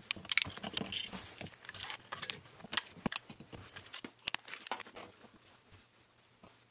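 Steel wood chisel scraping and chipping at set plaster in quick, irregular crunching strokes, clearing the plaster from the end of a PLA pattern's pour spout in a plaster casting mold. The strokes thin out and die away near the end.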